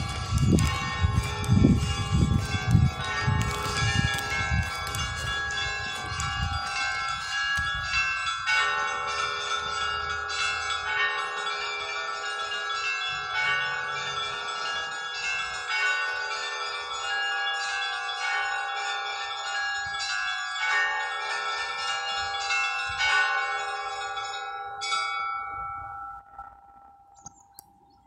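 Russian Orthodox church bells ringing a peal: several bells of different pitches struck by hand in a quick, repeating pattern. The strikes stop about 25 seconds in, and the bells then hum away and fade out.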